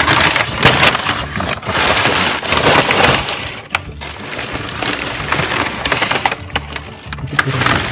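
Plastic bags crinkling and rustling as hands rummage through a cardboard box packed with wrapped glassware and plates, with a couple of sharp knocks. It is loudest over the first three seconds, then settles to quieter rustling.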